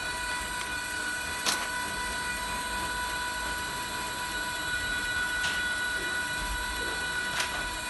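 Conveyor vending machine's electric drive running with a steady whine, broken by three sharp clicks: about a second and a half in, about halfway through, and near the end.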